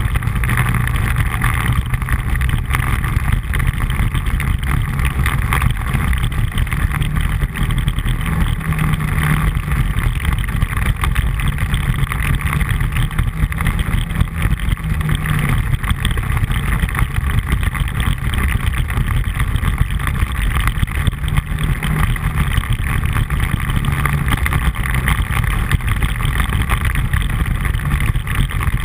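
ATV engine running steadily at trail speed, its note rising and falling a little with the throttle, over the rumble of tyres on a gravel dirt track.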